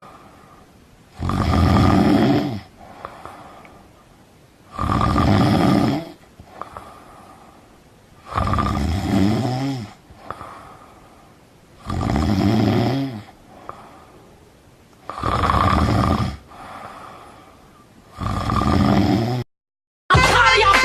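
A sleeping person snoring loudly: six long snores at a slow, regular pace about three and a half seconds apart, with softer breathing between them. The snoring stops shortly before the end and music starts.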